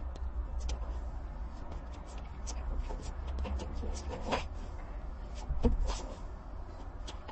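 Scattered small clicks and taps, like parts being handled, over a steady low hum; one louder knock comes near the end.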